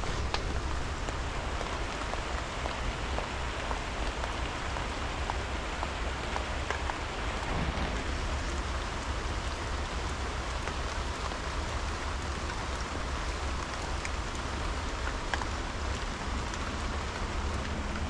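Steady outdoor noise: an even hiss with scattered small ticks, over a low rumble.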